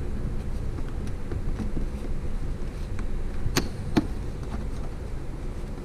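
Plastic fog light bezel being handled and pressed onto the bumper while its clips are lined up, with light taps and two sharp plastic clicks about half a second apart, a little past halfway. A steady low hum sits underneath.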